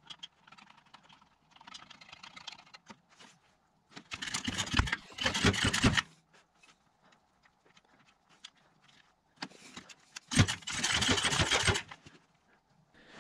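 Stihl FS55 string trimmer's recoil starter rope pulled hard, cranking the two-stroke engine without it firing, in two bouts about four and ten seconds in, with handling clatter between. The engine is being turned over to check the spark through an inline spark tester, which shows a weak spark.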